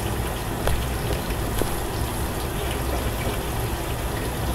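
Steady sizzling of food frying in oil inside a covered pan on a gas burner, with a low rumble underneath and a few faint pops.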